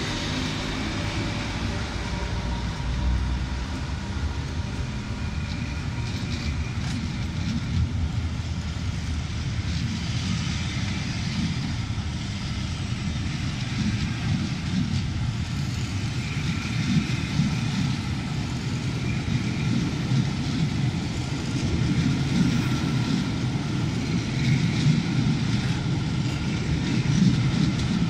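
Class 86 electric locomotive 86259 departing and its train of coaches rolling past close by. A steady rumble of wheels on rails grows somewhat louder toward the end.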